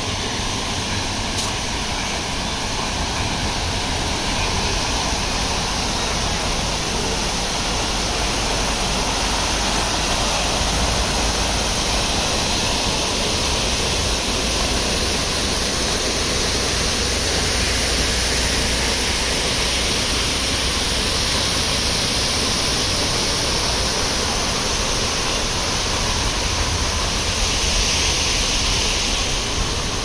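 Steady rushing of an artificial rockwork waterfall and the water running below it, a constant loud hiss with no break.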